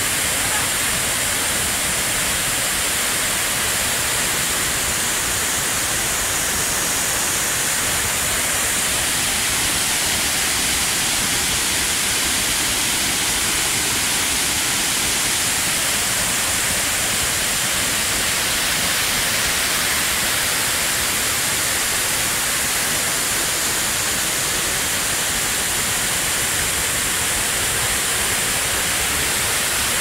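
Large waterfall pouring down a rock face and crashing onto boulders at its base, a loud, steady rushing roar.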